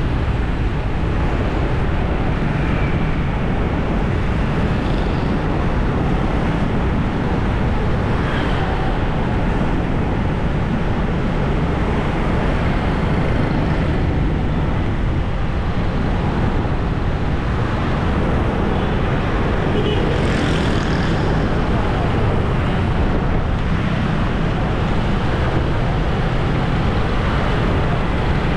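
Steady road and traffic noise while travelling along a city street among motorbikes: a continuous low engine and wind rumble with no sharp events.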